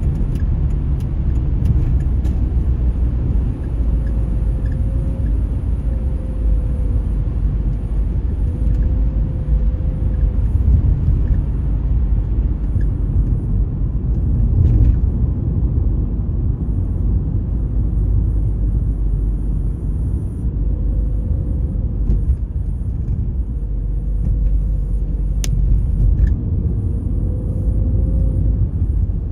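Road noise of a car driving at speed, heard from inside the cabin: a steady low rumble of tyres and engine, with a faint wavering whine over it.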